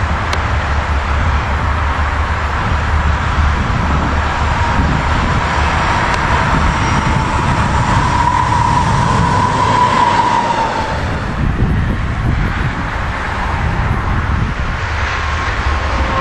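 Diesel locomotive passing close by, hauling a string of track maintenance machines, with a loud, steady rumble of engine and wheels on the rails. A steady whine runs along with it and fades out about two-thirds of the way through.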